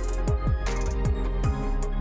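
Background music with a steady electronic beat: kick drum and hi-hats over sustained tones.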